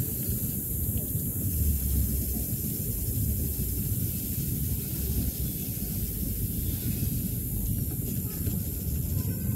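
Low, uneven rumble with a steady hiss, like wind buffeting the microphone; no distinct tool or work sounds stand out.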